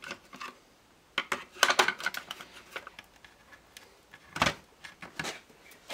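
Plastic clicks and knocks from handling a portable RCD as its white socket faceplate is worked loose from the orange plastic housing, with a louder knock about four and a half seconds in.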